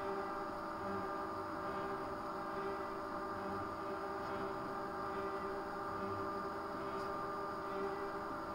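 80 W CO2 laser cutter running: a steady machine hum with several fixed tones over a light hiss, typical of the cutter's exhaust fan and air pump.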